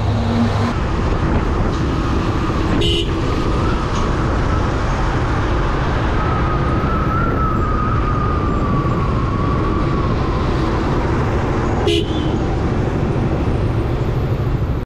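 Motorcycle ridden at road speed: engine running under steady wind and road noise, with highway traffic around it.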